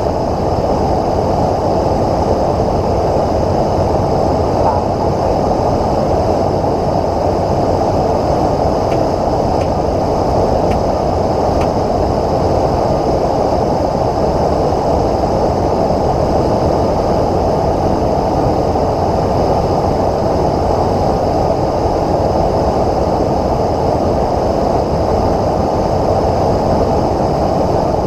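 Steady engine and airflow roar heard inside a light aircraft's cockpit on final approach to the runway, even and unbroken throughout, with a few faint ticks about ten seconds in.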